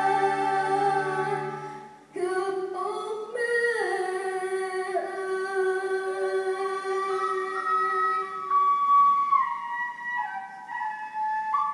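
Live chamber orchestra of strings accompanying a woman's singing. A held chord dies away about two seconds in, then a new phrase starts, with a melody of long held notes over lighter string accompaniment.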